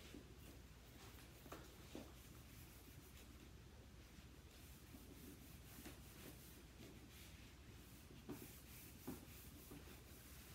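Faint rubbing of a handheld whiteboard eraser wiping marker off a whiteboard, with a few soft knocks along the way.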